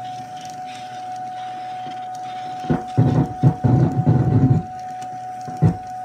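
A 16mm film's optical soundtrack played back through a homemade laser-and-photocell sound head, preamp, amplifier and speakers. The reproduced recording comes in as irregular low bursts about three seconds in and once more near the end, over a steady high tone, at a quality below what the head gives in the room.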